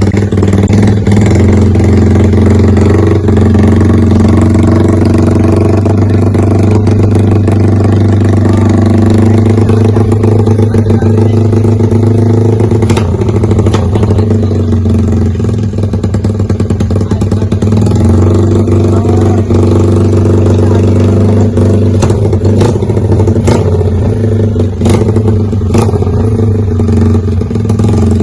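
Yamaha LC135 motorcycle's single-cylinder four-stroke engine running steadily through an NLK aftermarket exhaust, its carburettor fitted with a 68 main jet. A few sharp clicks sound in the second half.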